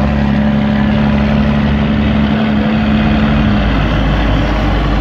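Cummins Signature diesel engine of a heavy dump truck idling with a steady low drone; a held tone in it drops out about three and a half seconds in.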